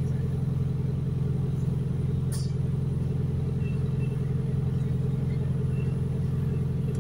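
Steady low drone of a New Routemaster diesel-electric hybrid bus's engine, running evenly as heard inside the upper deck, with a brief click about two and a half seconds in.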